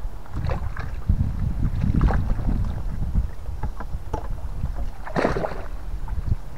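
Wind buffeting the microphone, a steady low rumble that rises and falls, with a few sharp clicks and knocks. The loudest knock comes just past five seconds in.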